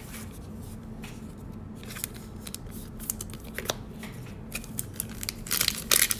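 Trading cards and a foil card-pack wrapper being handled: scattered light clicks and rustles, with louder crinkling near the end.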